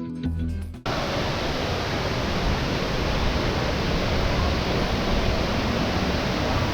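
Waterfall water rushing as a steady, even roar of falling water.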